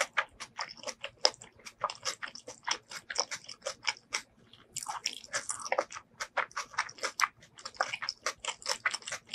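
Close-miked chewing of a mouthful of food with closed lips: a rapid run of wet mouth clicks and smacks, several a second, with a short lull about four seconds in.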